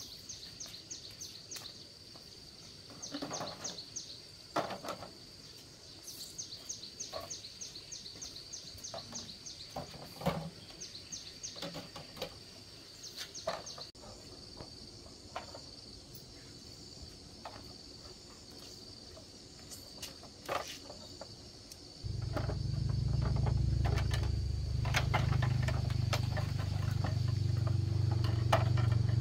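Insects trill steadily, with rapid runs of chirps, over scattered clicks and knocks of motorbike parts being handled. About three quarters of the way through, a loud steady low rumble sets in and runs on to the end.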